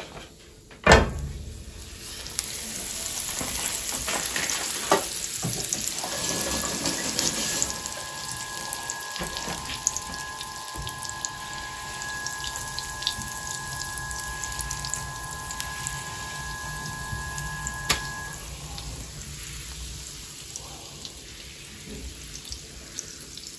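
A block of butter hits a hot pan of olive oil with a thump, then sizzles and crackles steadily as it melts, the hiss slowly easing toward the end.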